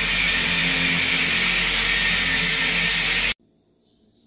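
Corded electric drill running steadily as it bores into the wall, then stopping abruptly about three seconds in.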